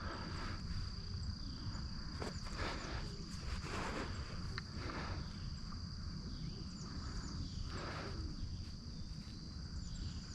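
Outdoor river ambience: a steady high-pitched insect drone over a low rumble, with a few soft scuffs or splashes scattered through.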